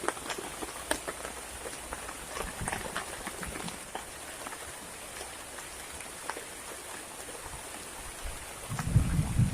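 Heavy tropical rain falling steadily, with many individual drops tapping close by. Near the end a loud low rumble comes in and swells.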